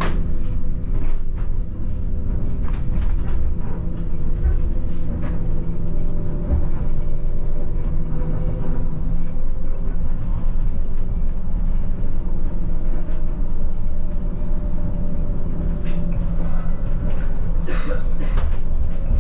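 Airport shuttle bus running, heard from inside its cabin: a steady low rumble with a hum of engine and drivetrain tones, and a few sharp clicks or rattles near the end.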